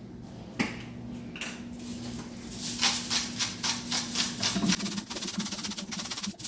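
Kitchen work at a soup pot: a single click about half a second in, then a rapid run of rattling, scraping strokes lasting about four seconds, over a low steady hum.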